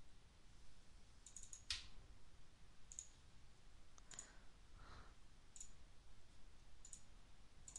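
Faint computer mouse button clicks, spaced a second or so apart, with a quick run of clicks a little over a second in.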